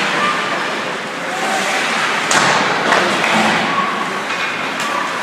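Ice hockey game sounds in an echoing rink: distant voices calling out, and two sharp knocks a little over two and about three seconds in, the first the louder.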